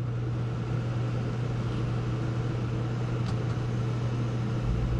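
13,500 BTU RV air conditioner running with its compressor on, started through a Micro-Air EasyStart soft starter on inverter power: a steady hum under the fan's rushing air. A deeper hum joins near the end.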